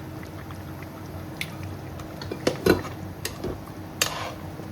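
A cooking utensil clinking and scraping against a pot of simmering curry, with several sharp knocks, the loudest a little past the middle, over a steady low hum.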